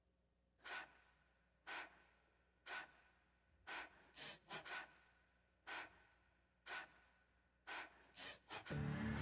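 A person's sharp gasping in-breaths, about one a second, with a quicker run of gasps near the middle and again near the end. Music with sustained tones comes in just before the end.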